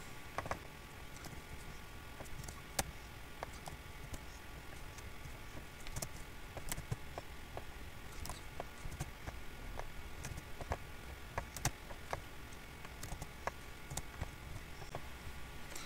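Faint computer keyboard keystrokes and mouse clicks, scattered and irregular, over a low steady background hum.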